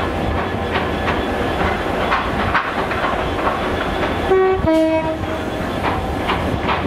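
Transport for Wales Class 197 diesel multiple unit running in, its wheels clicking over rail joints. About four and a half seconds in it sounds a two-note horn: a short higher note, then a longer lower one.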